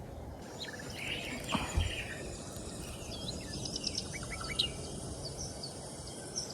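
Small birds chirping and calling in short, high, scattered notes over steady outdoor background noise. A soft knock sounds about a second and a half in.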